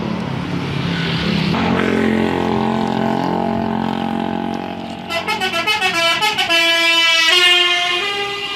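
Indonesian 'telolet' multi-tone bus horn playing: a quick run of short stepped toots about five seconds in, then two held chords of several notes. Before it, a lower steady tone swells up about a second and a half in.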